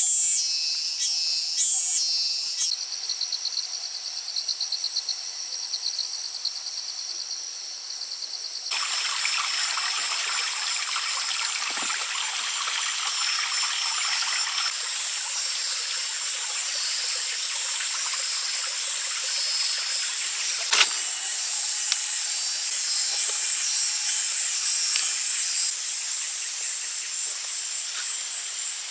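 Birds chirping and insects trilling in a fast pulsing rhythm; about nine seconds in, a steady hiss of rain sets in abruptly, with an insect's high, even buzz over it and a single sharp click a little past twenty seconds.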